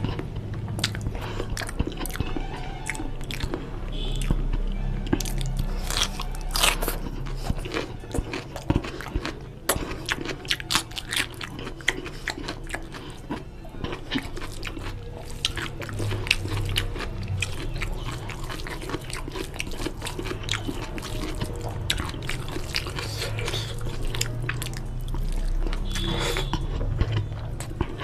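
Close-miked mouth sounds of someone eating mutton biryani by hand: chewing and lip smacking, a steady stream of short sharp clicks.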